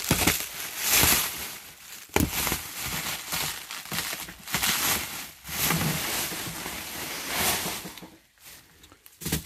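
Plastic pallet stretch wrap crinkling and tearing as it is sliced with a box cutter and pulled away, in irregular rustling bursts with a sharp snap about two seconds in.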